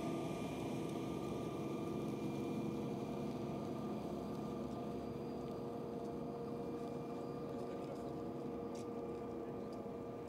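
A steady machine hum holding several constant tones, growing slightly fainter.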